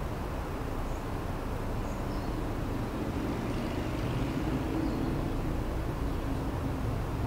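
Outdoor urban ambience: a steady low rumble of traffic, with a vehicle's hum swelling through the middle and easing off, and a few faint high chirps.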